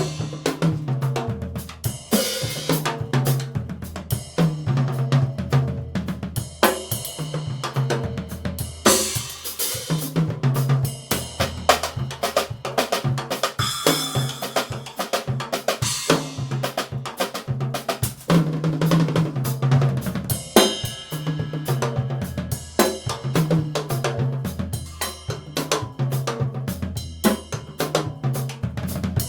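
Yamaha drum kit being played: toms, snare and bass drum with hi-hat and cymbal strokes, a dense, continuous run of hits.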